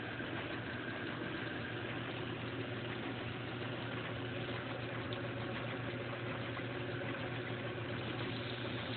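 Goodell-Pratt bench lathe running with no load, belt-driven by its electric motor: a steady low hum with some vibration still present, reduced but not gone now that the lathe and motor are mounted directly to the workbench.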